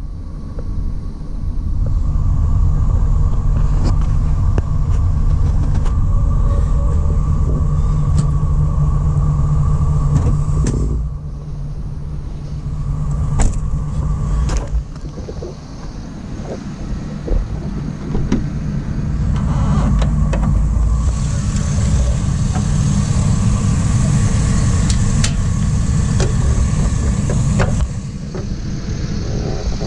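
2004 GMC Savana 3500's 6.0-litre V8 idling steadily with a low rumble. The sound shifts in level at about 11 seconds and again near the end, with a few sharp clicks along the way.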